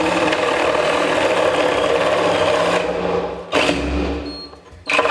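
DeWalt cordless reciprocating saw cutting into the wooden bottom of a wall cabinet. One long cut ends about three and a half seconds in, then there are two short bursts.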